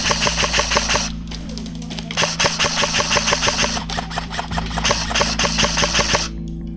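Airsoft electric rifle firing full-auto in three long bursts of rapid clicks, over steady background music.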